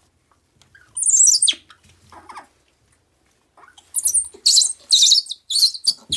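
Baby macaque screeching in distress while pinned under a pet pig: one shrill falling squeal about a second in, then a rapid run of shrill squeals near the end.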